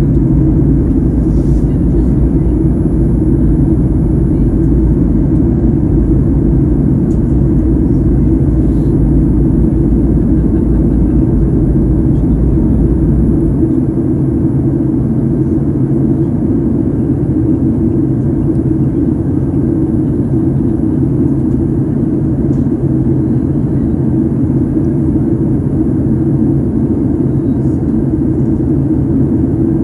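Steady roar of a Boeing 737 jet airliner in flight, heard inside the passenger cabin: engine and airflow noise with a deep rumble. The deepest part of the rumble drops away about halfway through.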